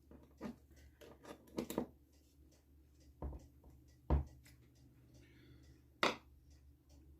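Small metal engine parts and tools handled on a workbench during a clutch strip-down: scattered light clinks and knocks, a dull thump a little after four seconds in and a sharp click about six seconds in.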